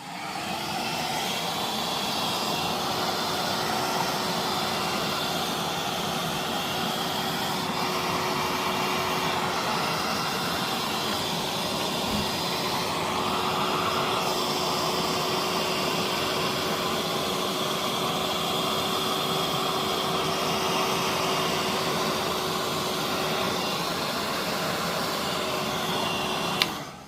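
Hand-held hair dryer blowing hot air steadily with a thin constant whine over its rush, heating the adhesive tape to seat the phone's back glass cover. It is switched on at the start and switched off shortly before the end.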